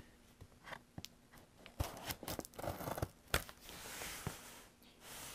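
Scissors cutting through packing tape on a cardboard box, with scattered sharp snips and clicks and short scraping, tearing sounds of tape and cardboard.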